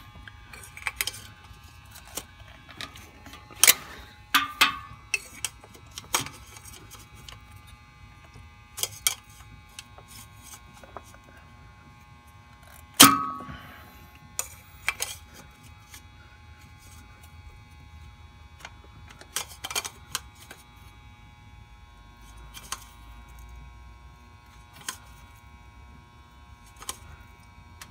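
Scattered sharp metallic clicks and clinks from a band-type oil filter wrench being worked on a spin-on oil filter. The louder ones ring briefly, the loudest about four seconds in and again about thirteen seconds in.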